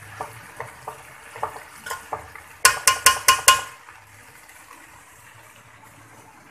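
A spoon stirring elbow macaroni and vegetables in a metal pot, with light knocks against the pot. About two and a half seconds in come five quick, loud ringing taps of the spoon on the pot.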